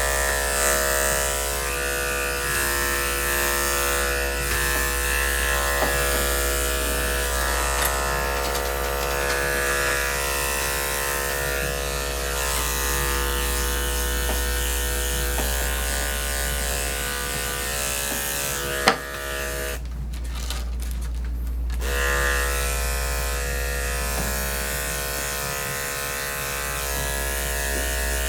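Electric dog grooming clippers running steadily, shaving down a matted coat. Near the two-thirds mark there is a sharp click, the clipper hum cuts out for about two seconds, then it starts again.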